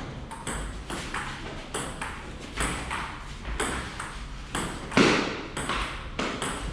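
Table tennis rally: the ball clicking back and forth off paddles and table, about two sharp hits a second, with one harder hit about five seconds in.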